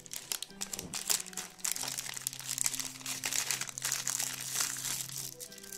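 A small plastic postal packet being torn open and crumpled by hand: continuous irregular crinkling and crackling as the hands work the wrapping apart.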